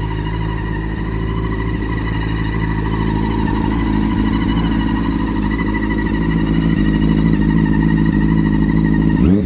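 Honda CBR600RR (PC37) inline-four engine running at a steady speed, with a steady whine above the engine note. Right at the end the revs rise sharply.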